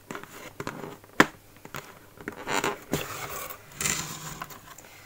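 Cardboard mailer box being opened by hand: a sharp click about a second in, then scraping and rustling as the lid and packing are handled.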